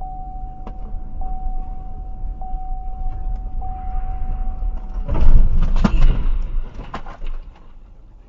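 Car driving, heard from inside the cabin over low road rumble: a steady high electronic tone, broken briefly about every second, runs for about five seconds, then a burst of loud knocks and thuds lasts about two seconds before the sound settles back to rumble.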